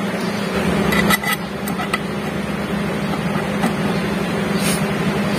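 Metal grinder plates and the stainless cover of an electric meat grinder clinking as they are handled and fitted: several sharp clinks, a cluster about a second in and a couple more later, over a steady motor hum.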